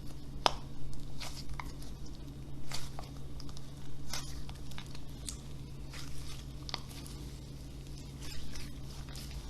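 Slime being squished and stretched by hand, giving off irregular small sticky pops and clicks.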